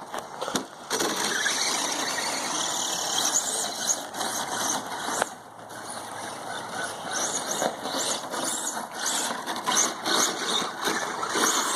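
Battery-powered RC monster truck driving, its electric motor and gears whining with wavering high-pitched squeals. The sound dips briefly about five seconds in.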